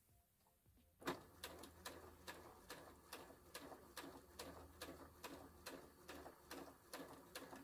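Janome DC2010 computerised sewing machine stitching slowly through fabric, starting about a second in: a low motor hum with an even click of the needle mechanism at each stitch, about two and a half a second.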